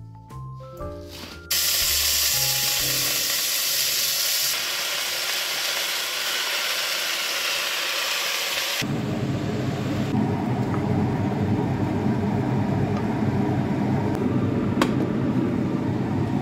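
Brief music, then about a second and a half in a sudden loud sizzling hiss of spinach cooking in a steaming steel pot, lasting about seven seconds. About nine seconds in the hiss gives way to a steady low rumble.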